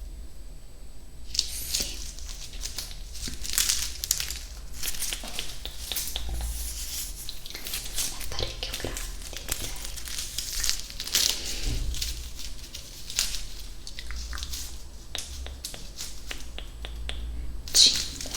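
Close-miked ASMR mouth sounds: a dense run of wet clicks and crackles, with a louder burst near the end.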